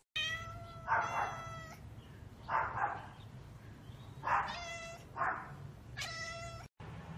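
A cat meowing about five times in short, high calls, some clear and some rougher, as it watches birds it cannot reach.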